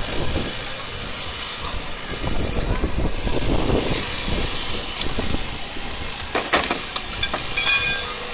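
An engine running under the chatter of a crowd. There are a couple of sharp knocks about two-thirds of the way through and a brief high squeal near the end.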